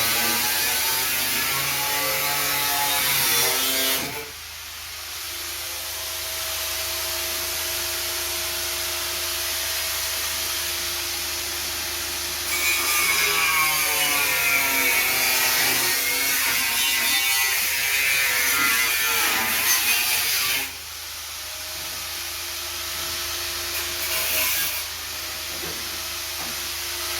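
Hand-held power tool motor running. Its pitch sags and wavers under load in two louder, harsher stretches, at the start and from about twelve to twenty seconds in. Between them it runs with a quieter, steady whine.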